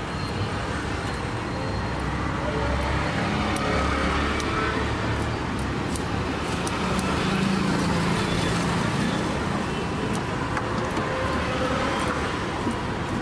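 Steady street traffic noise with a low engine rumble that swells a little in the middle, and a few faint clicks.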